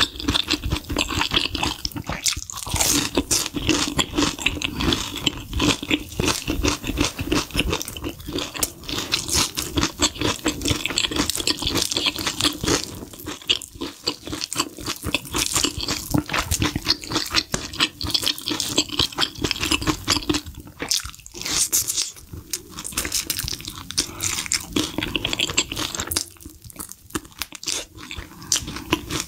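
Close-miked crunching and chewing of sauce-coated fried chicken, with wet, irregular crackles of the crispy coating being bitten and chewed.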